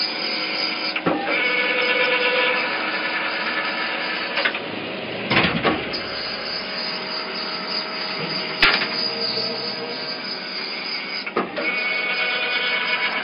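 Large nut tapping machine running in its continuous cycle, its spindle driving a tap through a large nut under flowing cutting oil: a steady mechanical whine made of several tones, broken by a few short sharp clicks or knocks.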